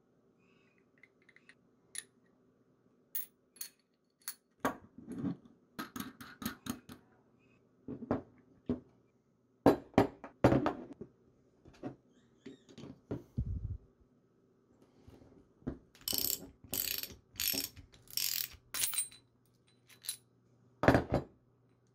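Steel washers, sockets, a bolt and nut clinking and knocking on a wooden desk as a homemade bearing puller is put together, then a socket wrench worked in a quick run of strokes, tightening the puller to draw a bearing out of its flanged housing, with one sharp knock near the end. A faint steady hum runs underneath.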